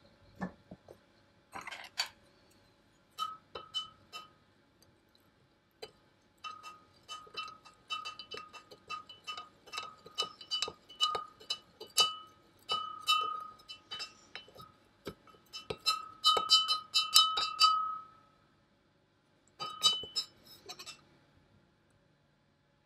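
A spoon stirring liquid in a glass beaker, tapping quickly against the glass, which rings with each tap. The clinking comes in runs with short pauses between.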